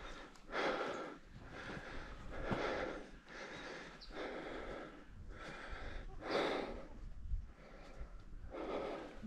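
A person breathing hard, loud breaths in and out about every one to two seconds, from exertion while climbing uphill in thin high-altitude air.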